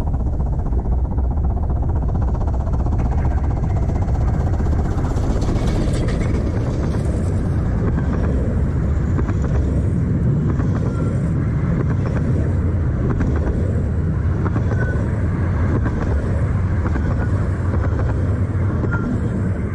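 A 15-inch gauge Romney, Hythe and Dymchurch Railway train running past on the track, its carriages rolling by with a steady, heavy rumble.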